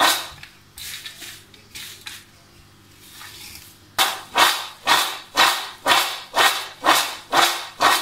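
Garlic cloves tossed in a large stainless-steel tray, rattling and swishing against the metal in regular strokes about twice a second, to shake the loose skins out. The tossing eases off for a few seconds, then resumes strongly about halfway through.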